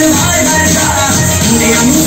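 Loud dance music playing steadily, with a melody line that bends in pitch over a steady beat.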